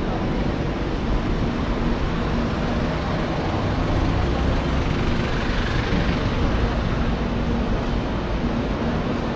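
Road traffic noise: a steady rumble of vehicles, with one vehicle passing close about halfway through.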